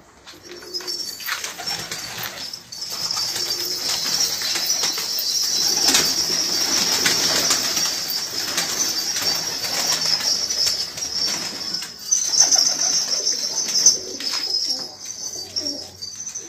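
A flock of domestic pigeons flapping and clapping their wings, with some cooing, and louder bursts of wingbeats near the end.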